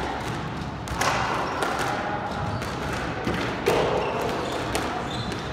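Squash rally: sharp cracks of the ball off the rackets and the court walls, loudest about a second in and again near the middle, with short squeaks of shoes on the wooden floor between them.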